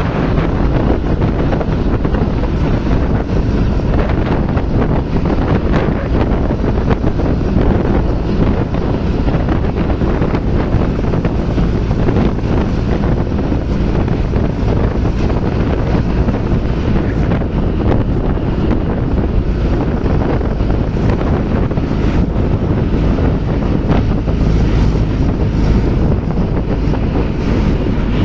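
Heavy engine running steadily under strong wind buffeting the microphone, with an even, low-heavy rumble and no change in pace.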